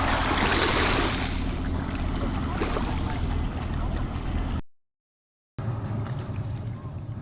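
Wind and waves washing at the shore over a steady low engine hum. The sound drops out completely for about a second some four and a half seconds in, then carries on more quietly.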